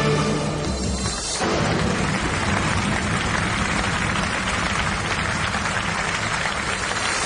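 A short stretch of music, then, about a second and a half in, a theatre audience breaks into steady, dense applause.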